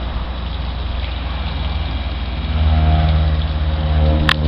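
Boat engine running steadily, then picking up to a higher, louder speed about two and a half seconds in, its first run after a new starter was fitted. A short sharp click comes near the end.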